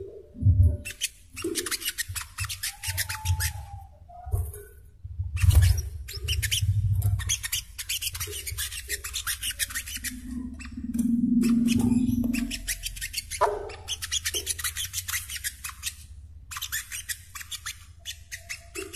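Brown-throated sunbird (sogok ontong) singing a fast, high, scratchy chattering song in repeated runs a few seconds long. A low hum comes in around the middle.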